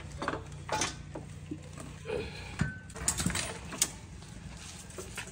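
Hand tools clicking and clinking against metal parts of a motorcycle engine being dismantled, a few irregular knocks with the loudest about three to four seconds in, over a low steady hum.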